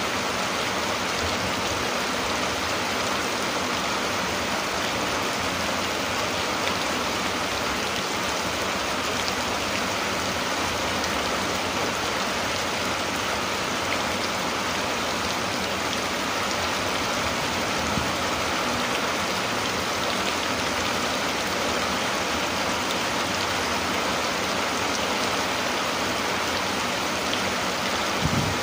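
Steady rain falling, an even hiss with faint scattered drop ticks. There is a soft low thud near the end.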